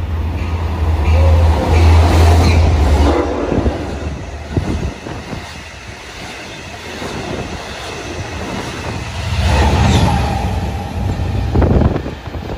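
Long Island Rail Road train passing close by at Mineola: a heavy low rumble, loudest in the first few seconds and again near the end, with wheels clicking and knocking over the rails in between.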